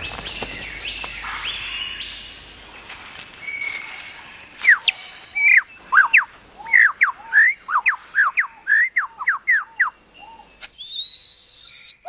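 Superb lyrebird singing: soft rising whistles at first, then from about four seconds in a loud, rapid run of sharp down-slurred notes, two to three a second, and a long high whistle near the end.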